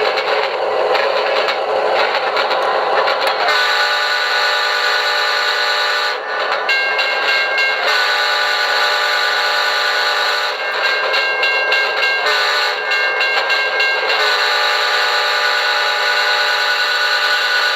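Multi-chime diesel locomotive air horn effect from a QSI Maxx Traxx model-train sound unit, played through a speaker. It starts about three and a half seconds in and sounds as a held chord in several long blasts with short gaps, over a running diesel rumble.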